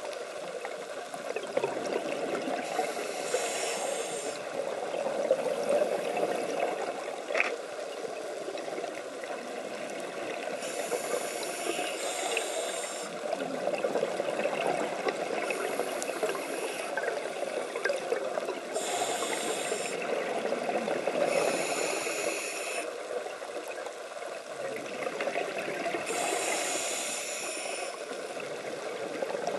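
Underwater recording: a steady low rush of water, with bursts of bubbling hiss every few seconds from a diver's scuba regulator exhaling. A single faint click about seven seconds in.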